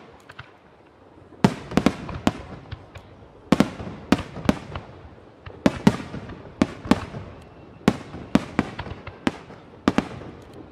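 Aerial firework shells bursting in a rapid volley: sharp bangs come in clusters about every half second to a second, each trailing off in an echoing rumble. The bangs start about a second and a half in.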